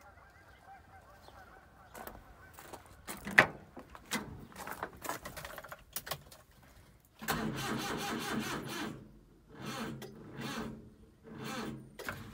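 Suzuki Carry 660 kei truck: clicks and knocks of the cab door and getting in, then three bursts of the starter cranking, the first about two seconds long and the next two about a second each, with the engine not catching.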